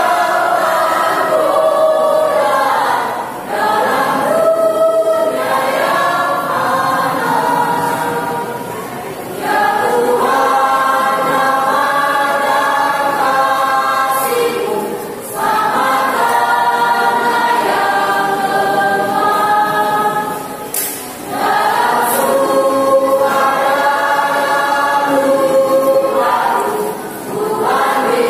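Mixed church youth choir of male and female voices singing a hymn in harmony. The sustained chords come in long phrases, with brief breaks about every six seconds.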